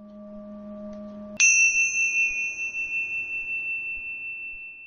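Logo sound effect: a low humming tone swells gently for about a second and a half, then a bright, bell-like chime strikes once and rings on, slowly fading away.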